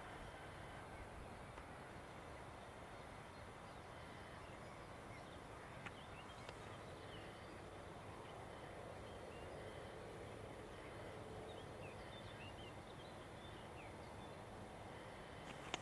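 Faint steady outdoor background noise with a few scattered bird chirps. A sharp click comes about six seconds in and another just before the end.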